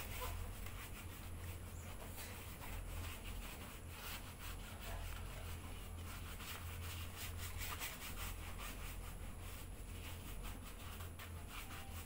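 Faint, irregular rubbing and scrubbing on a soapy motorcycle's tank and bodywork during hand washing, over a steady low hum.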